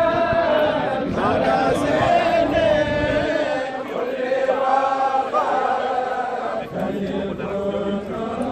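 A group of men chanting religious verses together in unison, in long held and gliding phrases, with short breaks between lines; a Mouride devotional chant.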